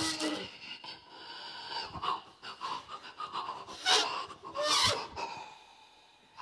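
Two harmonicas played mostly as breath: airy, hissy blows and draws in short bursts, with a brief held reedy tone at the very start. The loudest bursts come about four and five seconds in.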